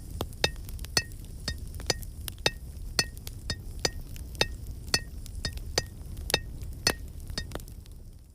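Blacksmith's hammer striking steel on an anvil in a steady rhythm of about two blows a second, each with a short metallic ring. The blows fade out near the end.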